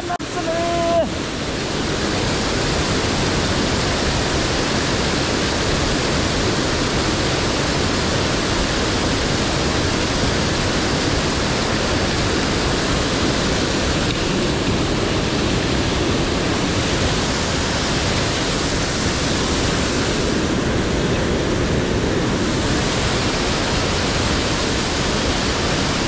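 Fast river white water rushing between boulders, with small waterfalls pouring down the rock face: a loud, steady rush of water.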